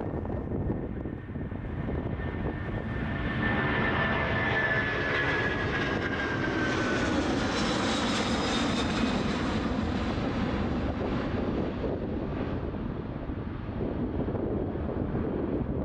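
Boeing 747 jet engines at takeoff power as the airliner passes, the sound swelling to a peak about halfway through and then easing off, with a whine that slides down in pitch.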